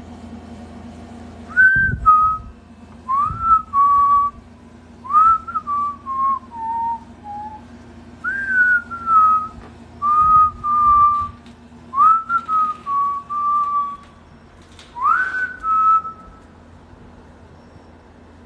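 Whistling: about seven short phrases, each sliding up into a held note, some stepping down in pitch, spread over some fifteen seconds and then stopping.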